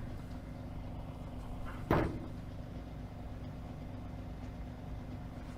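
A single sharp thump about two seconds in, over a low steady background hum.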